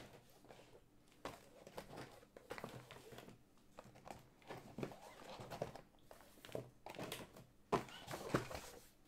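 Shrink-wrapped cardboard trading-card boxes being lifted out of a case and handled: light, irregular knocks of cardboard on cardboard and rustling of the plastic wrap, with a few louder knocks near the end.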